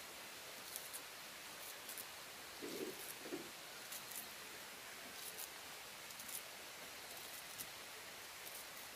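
Faint rustling with scattered light ticks over a steady hiss, and a brief, low muffled sound about three seconds in.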